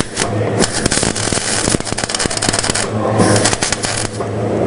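Electric arc welding: a dense, irregular crackle and sputter of the arc as a bead is laid, in two spells with a brief gap about three seconds in, over a steady low hum.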